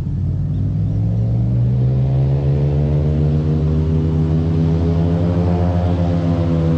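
A boat engine running loud and steady. Its pitch rises over the first couple of seconds as it speeds up, then holds.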